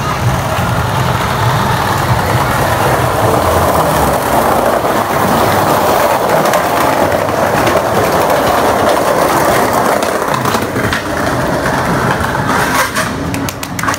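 Skateboard wheels rolling over a tiled walkway: a loud, steady rolling rumble, with a few sharp clacks near the end.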